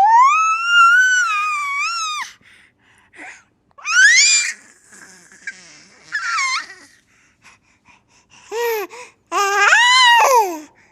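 A baby's high-pitched squealing cries: one long wail of about two seconds, then four shorter ones with pauses between.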